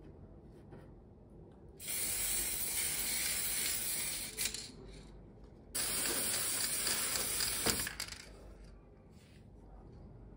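Aerosol spray paint can spraying in two bursts of hiss, each about two seconds long, with a short click as each burst ends: paint being sprayed onto metal lamp parts.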